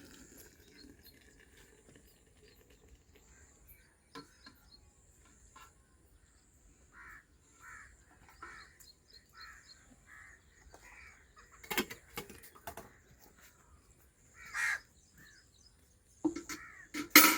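Birds calling: a run of short calls repeated about once a second, with a sharp knock about twelve seconds in and a loud clatter of knocks near the end.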